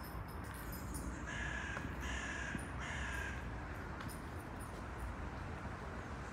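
Crow cawing three times in quick succession, each harsh call about half a second long, over a steady low background rumble.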